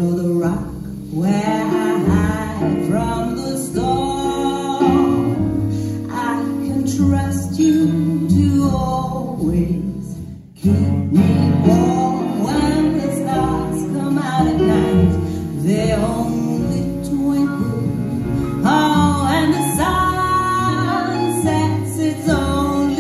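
Live music from a jazz quintet of piano, cello, double bass and drums, with a moving melodic line over the band. About ten seconds in, the sound drops away for a moment before the band comes back in.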